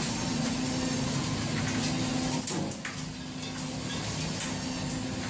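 A fishing boat's engine and deck machinery drone steadily with a constant hum, and a short clatter of knocks comes about two and a half seconds in.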